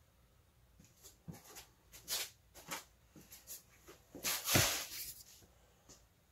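Scattered short rustles and wipes of a microfiber towel and plastic spray bottle being handled, with a louder rustle and a dull thump about four and a half seconds in.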